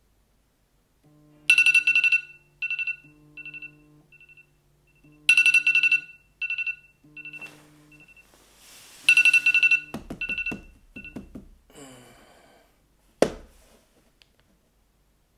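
Smartphone alarm tone going off: a musical chime phrase plays three times, each a run of bright notes fading away over a low tone. It then stops, and bedding rustles with a sharp knock near the end as it is silenced.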